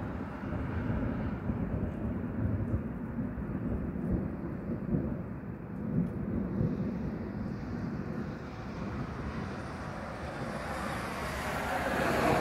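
Low rolling thunder rumbling on and off. Near the end the hiss of a passing car rises over it.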